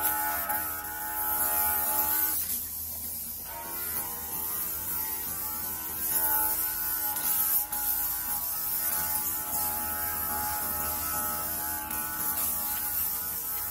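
Handheld cordless nano mist sprayer buzzing steadily as it atomizes alcohol disinfectant. The buzz cuts out for about a second, roughly two and a half seconds in, then starts again.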